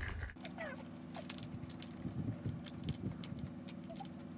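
Light plastic clicks and taps as the blade lock cap is twisted onto the electric fan's hub, over a steady low hum.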